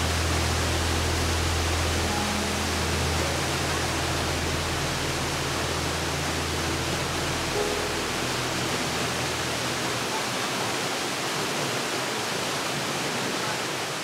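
Steady rush of a mountain stream pouring into a deep plunge pool, a full, even hiss of falling water. Soft background music of low held notes lies under it and fades out about three-quarters of the way through.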